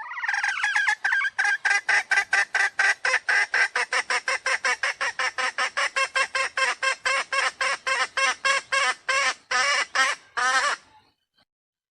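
Junglefowl call used as a lure: a long, rapid run of harsh, cackling notes at roughly four or five a second, stopping abruptly about eleven seconds in.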